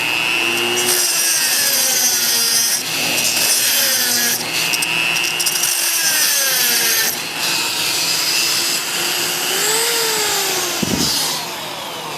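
Dremel rotary tool with a cutoff wheel grinding a slot across the stripped head of a carburetor float bowl screw. The motor's whine dips and rises as the wheel bites, with a few short breaks, and the grinding stops shortly before the end.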